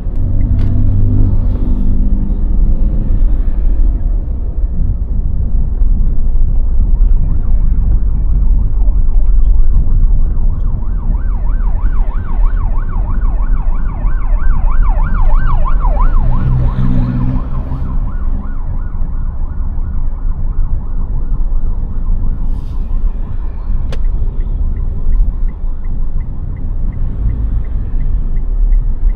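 Street traffic rumbling, with a vehicle siren warbling rapidly up and down for several seconds in the middle. A steady fast ticking, about three ticks a second, comes in near the end.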